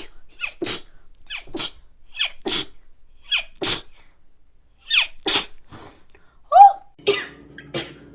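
A woman sneezing in a rapid fit, about five sneezes in a row, each a quick breath in followed by the burst. About six and a half seconds in comes one loud voiced cry that rises and falls in pitch, after which a steady low hum runs under a few more sneezes.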